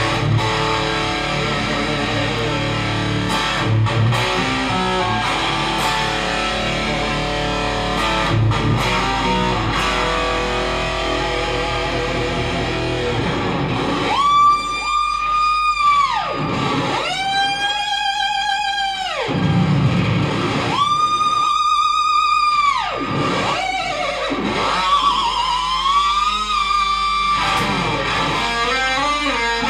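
Ibanez electric guitar: dense playing at first, then, from about halfway, three long pitch glides, each swooping up, holding with a fast wobble and dropping away, imitating a horse's neigh. A shorter wavering glide follows near the end.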